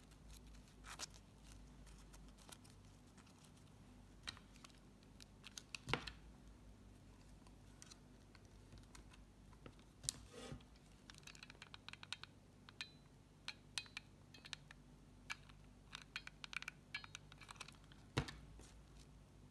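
Faint rustling and small clicks of satin ribbon petals being handled and pressed between fingers and fingernails, with three louder sharp taps, about six seconds in, about ten seconds in and near the end.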